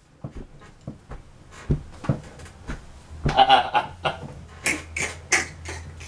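A man laughing hard and helplessly in breathy, wheezing bursts, with a run of short sharp clicks between them.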